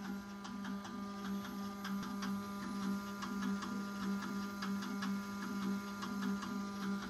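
Control moment gyro rig running: a steady motor hum with many sharp ticks, swelling and fading in a regular beat a little under twice a second. The gimbal is chattering back and forth because the PID gains are too high and the controller's output is saturating.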